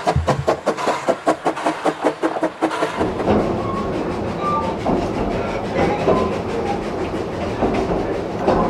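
Narrow-gauge steam locomotive exhaust chuffing evenly, about five beats a second, as it hauls the train. About three seconds in this gives way to the steady rumble and clatter of a carriage running on the rails.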